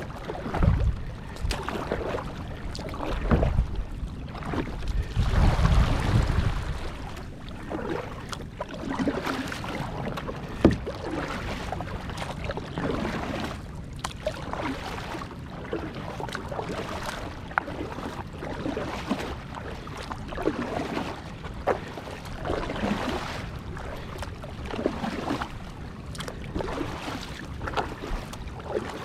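Kayak paddle blades dipping and splashing in the water, a stroke about every one and a half to two seconds. Gusts of wind rumble on the microphone during the first several seconds.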